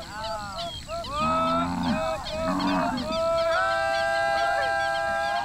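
A flock of birds calling over one another in many short rising-and-falling calls, with two low calls from cattle among them. From about three and a half seconds in, a long steady note is held.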